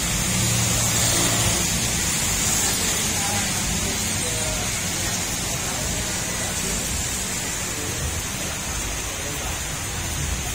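Heavy rain pouring onto pavement and a flooded street, a steady hiss. A car drives by on the wet road in the first second or so.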